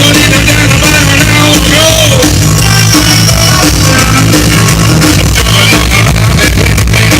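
Rock music with singing, played loud through the Porsche 928S4's MB Quartz and Alpine car stereo, heavy bass throughout; the sound is harsh and distorted because the volume overloads the phone's microphone.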